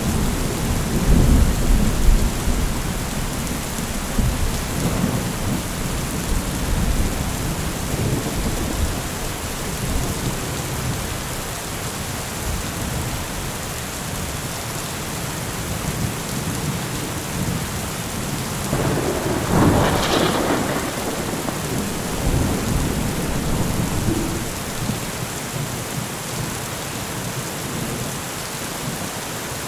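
Heavy rain falling steadily with rolling thunder. The low rumble is strongest in the first few seconds, and a louder peal of thunder swells about two-thirds of the way through.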